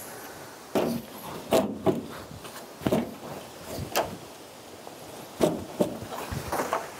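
A series of irregular knocks and clunks, about seven over several seconds, like doors, wooden objects or footsteps being handled or moved.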